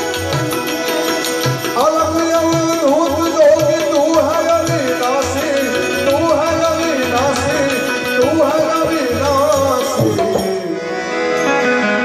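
Live devotional music: an Indian banjo (bulbul tarang) plays a wavering melody over held harmonium tones and a steady hand-drum rhythm. The lead melody comes in about two seconds in and drops away near the end.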